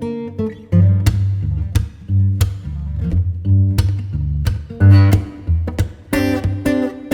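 Background music led by plucked guitar: a run of picked notes and chords over a steady bass line.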